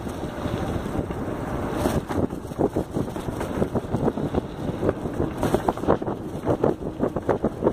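Wind buffeting the microphone as a bicycle rolls fast down a rough dirt trail, with frequent rattles and knocks from the bike over the bumps, thickest in the second half.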